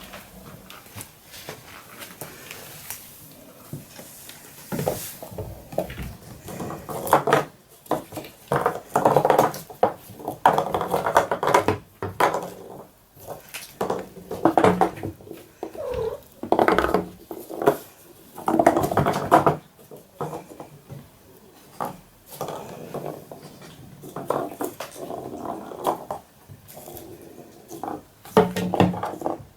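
Maine Coon kittens meowing again and again in short pitched calls, starting about five seconds in.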